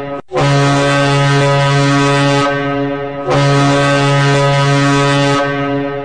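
SK Horácká Slavia Třebíč hockey goal horn blasting: after a short break just after the start, two long steady blasts of about three seconds each, the second following the first almost without a pause.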